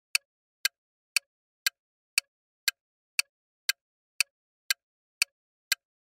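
Countdown timer ticking: short, sharp clicks, evenly spaced at about two a second.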